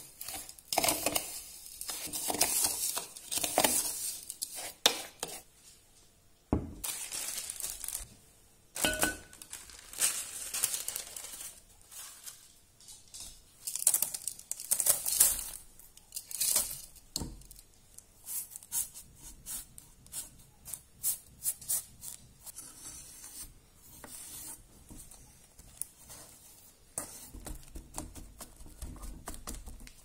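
A metal spoon scraping and clinking inside a plastic blender bowl as it stirs gritty crushed Oreo crumbs with melted butter, in irregular strokes. The crumbs are then tipped into a parchment-lined ring mould, and near the end they are pressed down with a glass in low, dull thuds.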